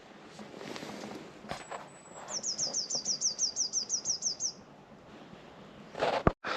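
Small songbird singing: a thin high note, then a quick run of about fifteen falling high notes lasting about two seconds. A short knock comes near the end.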